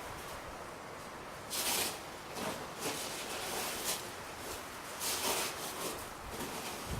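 Irregular rustling scuffs, about five in a few seconds, over a faint steady hiss.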